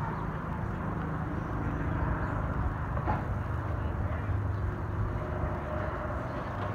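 Outdoor background noise: a steady low rumble with hiss, and a faint low hum that sets in about four seconds in.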